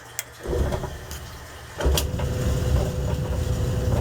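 Whirlpool clothes dryer running on air dry, its drum tumbling the clothes with a low rumble and a steady motor hum. There are sharp clicks at about 0.2, 1.1 and 2 seconds in. The rumble grows louder from just before the last click.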